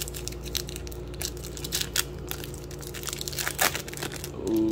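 Foil wrapper of a Topps Chrome baseball card pack being torn open and crinkled by hand: irregular crackling and tearing.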